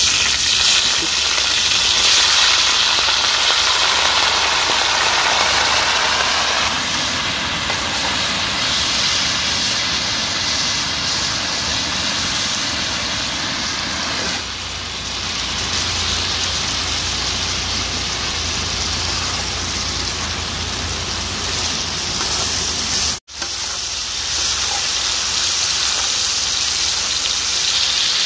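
Duck pieces sizzling loudly in hot oil on a large tawa as they are tipped in and stirred with a spatula, the hiss strongest in the first several seconds after they hit the oil. The sound cuts out for an instant near the end.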